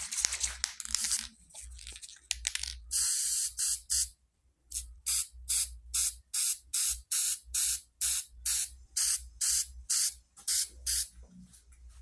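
Aerosol spray-paint can hissing in short bursts, laying a light coat of paint. First there is one longer burst of about a second, then a quick run of short bursts, about three a second.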